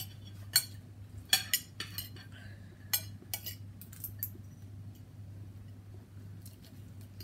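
Metal fork and spoon clinking and scraping against a plate while food is served and eaten, a dozen or so sharp clinks, most of them in the first four seconds, over a low steady hum.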